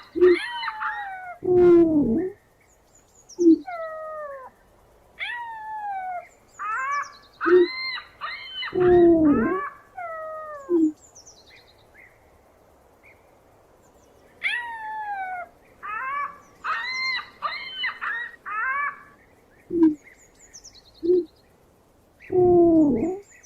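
Birds calling: bursts of quick falling chirps, some sounding in several pitches at once, alternating with short lower calls that drop in pitch, in a cycle that repeats, with a quiet stretch about halfway through.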